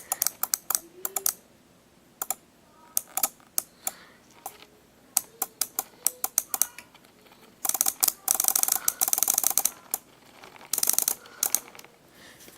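Small electromechanical relays and switches on a relay Morse code decoder clicking, first as scattered single clicks and then in two stretches of rapid buzzing chatter, about eight and eleven seconds in.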